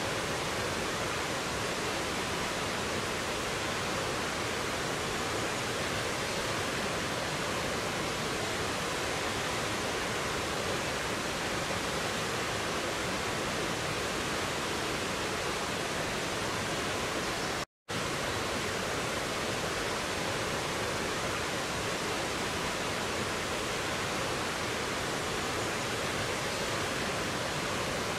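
A rushing mountain stream cascading over boulders in a small waterfall, a steady, even rush of water. The sound cuts out for a split second about two-thirds of the way through, then resumes unchanged.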